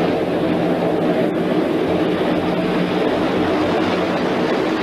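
A column of tanks on the move: engines running with a steady, even drone over the rumble and clatter of tracks.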